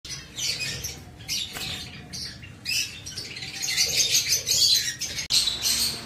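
Caged African lovebirds chirping and squawking: many short, shrill calls in quick succession, busiest just before a sudden break a little past five seconds.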